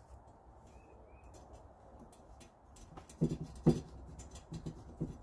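Steel bicycle spokes clicking and tapping against the hub and rim as a wheel is laced by hand, with a cluster of louder knocks about three seconds in. Two faint short squeaks about a second in.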